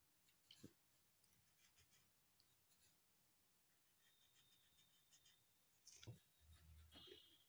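Faint scratching of a soft-lead pencil drawn over drawing paper in short strokes, with a soft thump about six seconds in.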